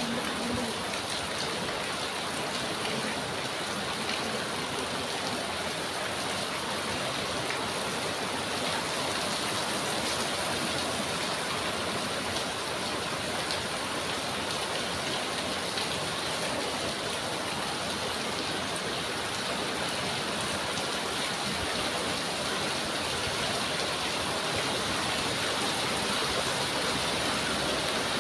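Heavy rain falling steadily, an even, unbroken wash of noise.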